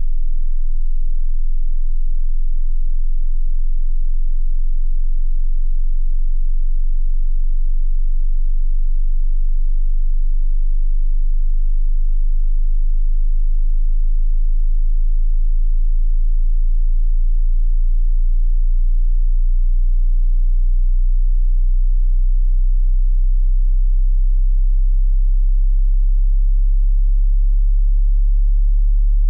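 Pure sine test tone of a hearing test, very low-pitched and held steadily, growing stronger toward the end.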